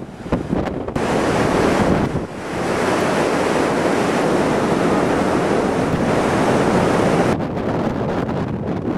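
Heavy storm surf breaking, a steady wash of water noise from about a second in until a second and a half before the end. Gusty wind buffets the microphone at the start and again near the end.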